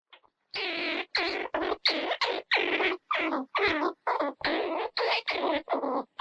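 Squirrel chattering: a rapid run of about a dozen short, harsh calls, two or three a second.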